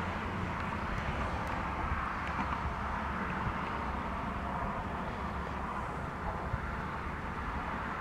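Steady outdoor ambience: a continuous low rumble under a wide hiss, with no distinct calls or events.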